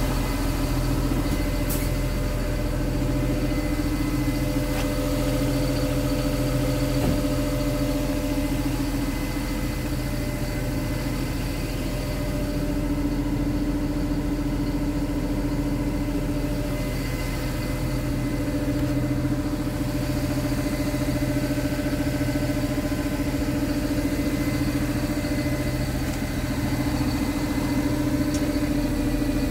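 Scania R truck's diesel engine idling steadily.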